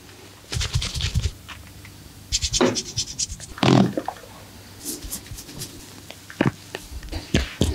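Hands working on skin during a massage: quick bursts of scratching and tapping, broken by a few louder single thuds.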